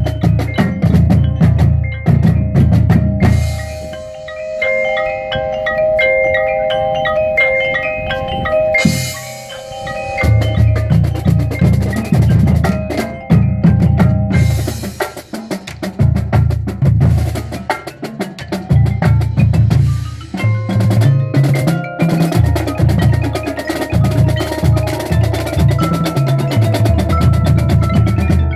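Marching-band percussion warming up together: front-ensemble mallet keyboards, marimbas and glockenspiel-like bells, playing fast passages and held chords over drums, with rapid strokes throughout.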